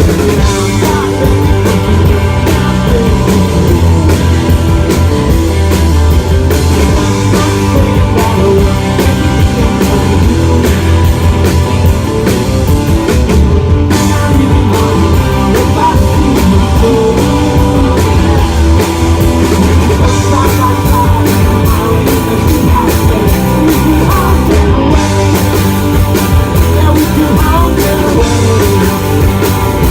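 Loud live rock band performance: electric guitars, bass and drum kit playing without a break.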